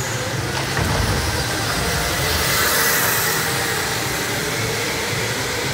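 Go-karts running laps on an indoor track, a steady motor drone that swells as a kart passes closer about two to three seconds in.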